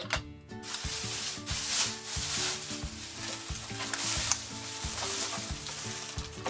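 Small plastic building pieces being handled, scraped and pressed together, giving a rustling, scraping noise with a few clicks, over light background music with a simple stepping tune.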